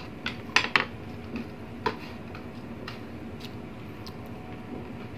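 Tableware clinks during a meal: wooden serving utensils and fingers knocking against plates as noodles are served, a few sharp separate clicks with the loudest close pair just under a second in.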